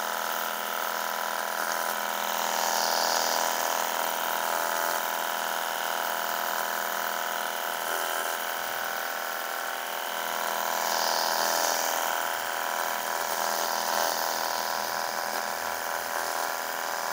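Cordless battery-powered pressure washer's electric pump running steadily with an even whine. The spray hisses as the gun's bottle attachment sprays shampoo foam.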